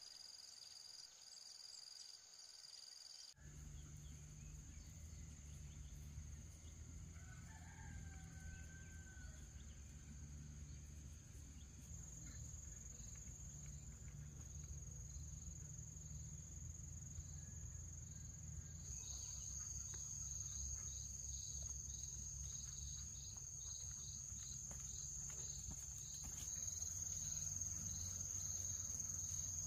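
Insects droning steadily at a high pitch, louder from about two-thirds of the way through. A rooster crows once, faintly, about a quarter of the way in, over a low steady rumble that starts a few seconds in.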